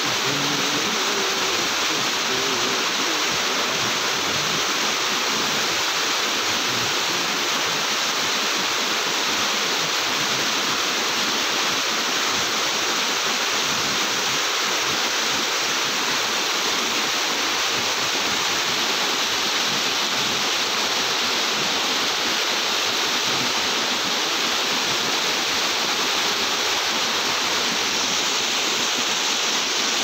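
Fast-flowing, silt-laden mountain river rushing over a rocky bed: a steady, unbroken rush of water.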